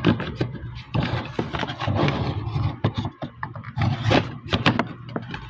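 Hard plastic toy pieces handled and pushed together: irregular small clicks and knocks with rustling, as an accessory is tried in a slot it will not snap into.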